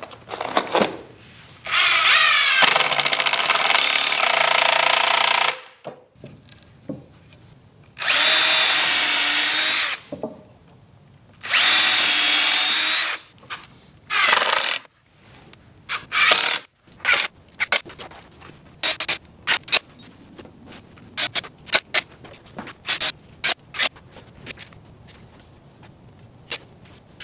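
Cordless drill driving long screws into 1x4 planks on 2x4s: three runs of a couple of seconds each and a shorter fourth, the motor whining up to speed at the start of the first. After them come many scattered clicks and knocks of screws and wood being handled.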